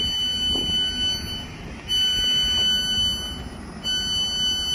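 Electronic alarm tone beeping three times, each beep a steady high note about a second and a half long with a short gap between, over a low rumbling background.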